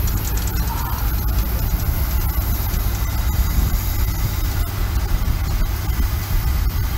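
1920 Minneapolis steam traction engine working under load pulling a gang plow: a steady low rumble with faint knocks.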